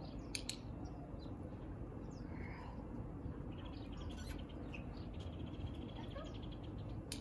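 Small birds chirping, with a rapid, evenly repeated trill from about four seconds in, over a steady low background rumble. A couple of sharp clicks come near the start and again near the end.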